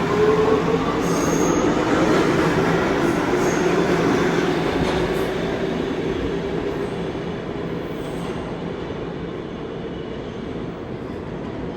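New York City Subway R211A train accelerating out of the station: its traction motors whine upward in pitch over the first few seconds over the running noise of the wheels on the rails, and the sound fades steadily as the train pulls away.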